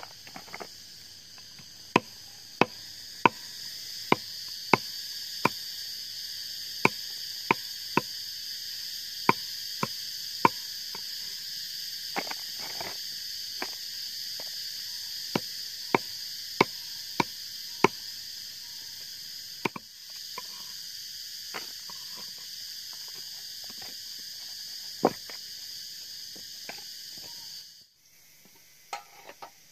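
Machete blade chopping small fish on a round wooden chopping block: runs of sharp knocks, about one and a half a second. Underneath is a steady high buzz of insects that cuts off near the end.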